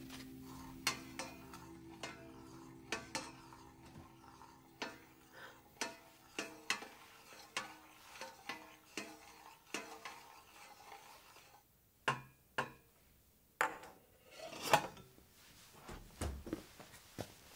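Dishes and cutlery clinking and clattering as plates are handled, with a few louder knocks after a short pause and a run of footsteps near the end. A low sustained music tone fades out in the first few seconds.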